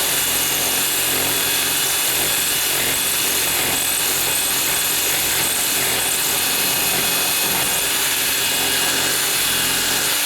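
Electric drill running steadily at high speed, the edge of its drill bit reaming the side of a metal deadbolt strike plate.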